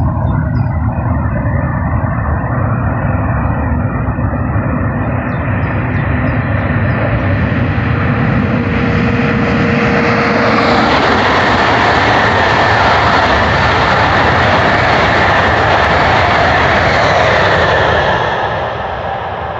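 Two coupled ICE 3 high-speed electric trainsets passing at speed: a rushing roar of wheels and air that builds over several seconds, is loudest for about six seconds as the train goes by, then fades near the end. A brief steady tone sounds as it approaches, and a steady high whine runs through the loudest part.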